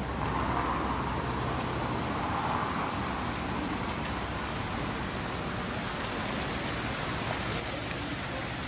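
Steady outdoor city ambience: a constant, even wash of distant noise, with a few faint clicks.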